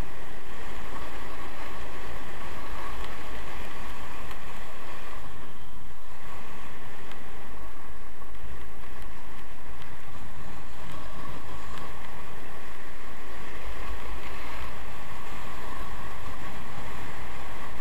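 Wind rushing and buffeting over the camera microphone during a downhill ski run, with skis hissing over the groomed snow.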